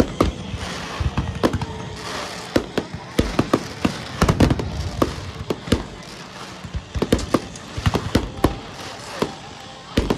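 Fireworks going off: a rapid, irregular string of sharp cracks and bangs, some close together in quick bursts.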